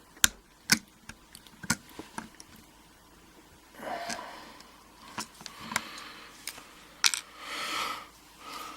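Small metal clicks and clinks from a pin-tumbler euro cylinder lock being taken apart by hand, with its retaining clip just removed. Several sharp separate clicks come first, then softer scraping and sliding with a few more clicks.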